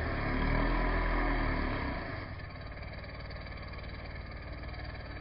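An engine running steadily, louder for about the first two seconds and then dropping to a lower, even level.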